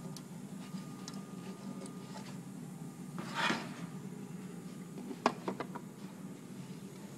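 Handling noise: a brief rustle, then a sharp click about five seconds in followed by a few lighter clicks, over a low steady hum.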